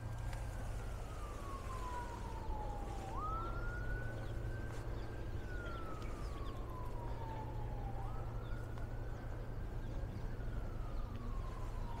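Emergency vehicle siren on a slow wail: the pitch falls slowly, jumps back up about three seconds in and again about eight seconds in, then falls again. A steady low rumble runs underneath.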